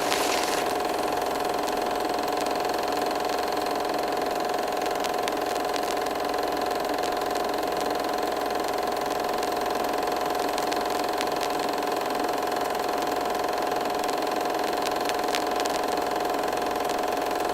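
Vintage 35mm film projector running: a steady mechanical whir with a constant whining tone.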